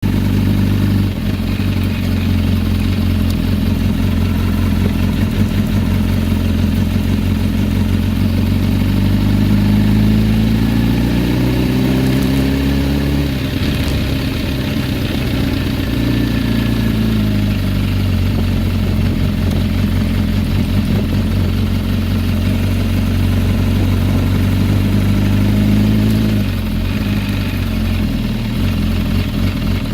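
2007 Kawasaki Ninja ZX-10R's inline-four engine idling, twice revved up slowly and then let fall back. Loud ticking and rattling on deceleration, the fault the owner has been chasing since a rebuild; new cam chain, new tensioner, adjusted valves, tightened header bolts and a reassembled clutch have not cured it.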